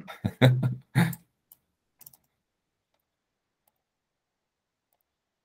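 A man's voice for about the first second, then near silence broken by a few faint, short clicks.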